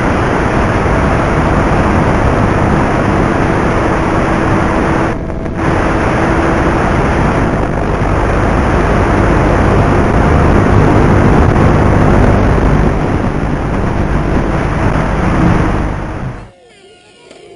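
Loud, steady rushing noise on the audio of the analog FPV video link recording from the Versa wing, with a faint steady hum at times. It cuts off suddenly near the end.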